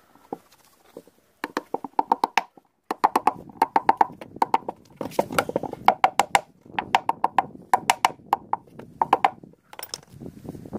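Small hammer tapping a rubber shaft seal into the bearing housing of a plastic washing machine drum, striking in quick runs of several light, sharp taps. The taps start about a second and a half in and stop shortly before the end.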